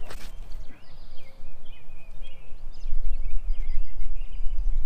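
Wind rumbling on the microphone while small birds chirp repeatedly, with a short swish right at the start as a disc golf drive is thrown.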